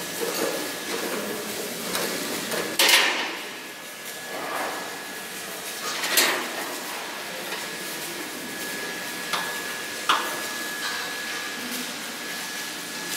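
Factory workshop noise: sharp metallic clanks, like hammer blows on metal. The two loudest come about three and six seconds in, and two lighter ones follow about a second apart near the end. Under them runs a steady background din with a faint high whine.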